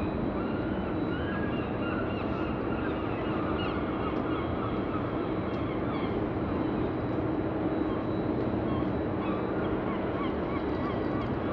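A flock of birds calling over and over in short honking calls, over a steady background rumble.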